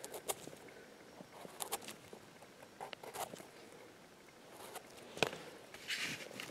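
A knife scraping soil off the base of a porcini's stem: scattered short, soft scratches and clicks, with a longer rasping scrape near the end.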